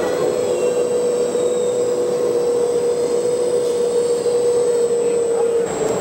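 Electric hydraulic pump of a Kabolite RC hydraulic excavator whining at one steady pitch, dipping slightly near the end.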